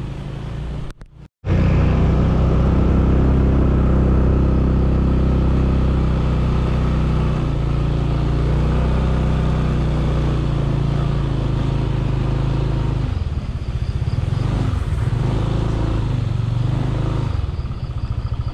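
Motor vehicle engine running steadily and loudly under load close to the microphone. It drops out briefly about a second in, and its note turns more uneven and pulsing in the last few seconds.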